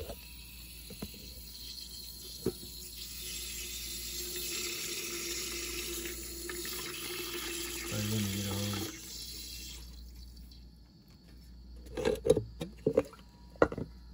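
Water rushing out of a hot water boiler's drain valve into a metal can as the boiler is drained down to zero pressure; the flow grows stronger, then stops about ten seconds in. A few sharp knocks follow near the end.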